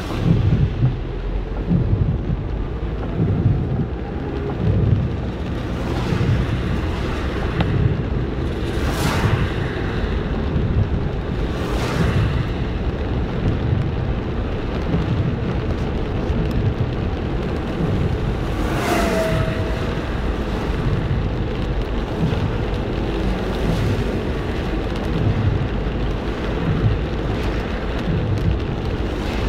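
Heavy rain falling steadily, with uneven low rumbling under it and a few brief louder swishes.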